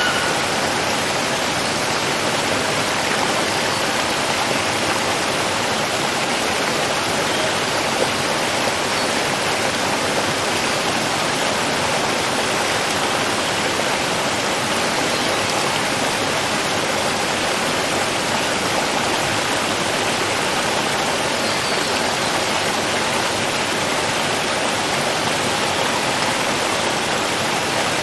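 Flowing water rushing steadily, a continuous even wash of a stream or small waterfall.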